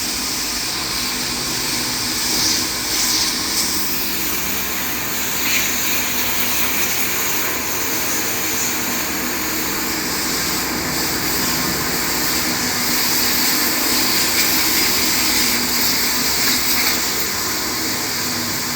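Steady, loud whooshing machine noise running without a break, with a few brief swells.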